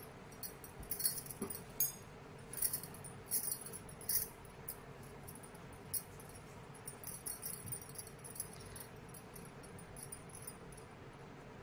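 Light rustling and scattered small clicks of hands handling knitted yarn and knitting needles. The sounds come in clusters over a faint steady hum.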